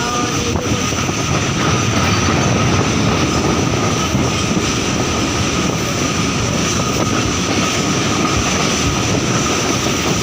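Loud, steady mechanical rumble with a faint high steady tone over it.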